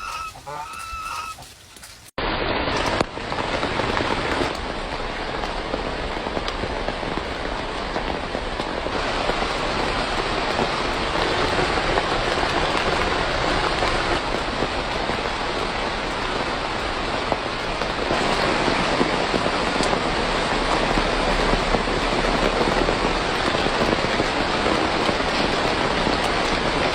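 Steady, dense rainfall pattering on a surface. It cuts in abruptly about two seconds in, after the fading tail of a song.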